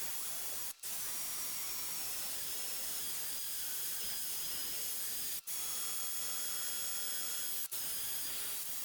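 A steady hiss with faint high tones in it, broken three times by sudden brief dropouts.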